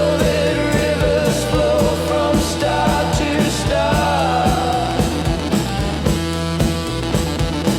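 Psychedelic rock song playing: a steady drum beat and bass under a wavering melody line, which is likely a singing voice.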